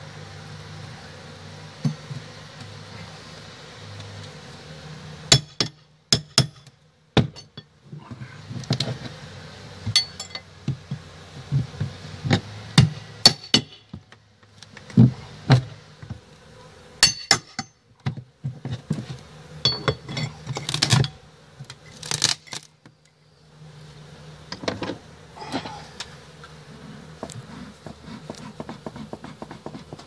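Honey bees buzzing steadily around an exposed hive while a prying tool clicks and knocks against the overhang trim as it is levered open. The knocks come in clusters between about five and twenty-three seconds in and are the loudest sounds.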